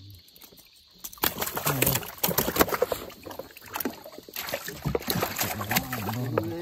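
Irregular knocking and clatter of things being handled on a small wooden boat, starting about a second in, with a low voice talking briefly in the middle and near the end.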